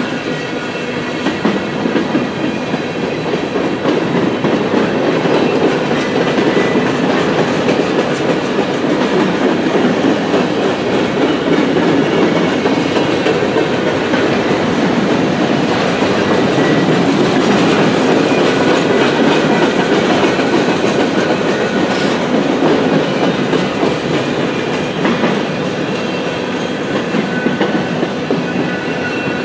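Freight cars of a long mixed freight train rolling past: a steady, loud rumble and rattle of steel wheels on rail.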